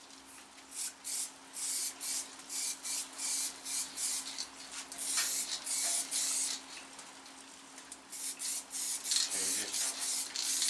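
Aerosol can of weld-through primer sprayed in short hissing bursts, about one or two a second, with one longer spray about halfway through.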